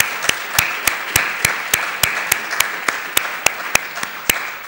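Audience applauding, with one person's claps close to the microphone standing out at a steady three or four claps a second; the applause dies away near the end.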